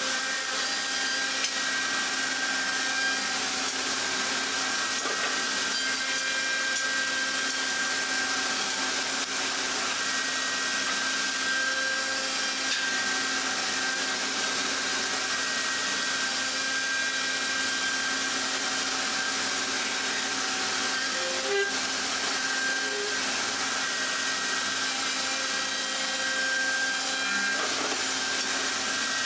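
A power tool working wood, running steadily: an even rushing noise with a constant high tone over it.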